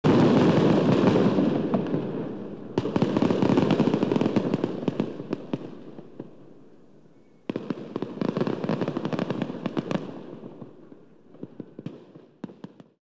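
Fireworks crackling and popping in two bursts. The first starts suddenly and dies away over several seconds; the second starts suddenly about seven and a half seconds in and fades out near the end.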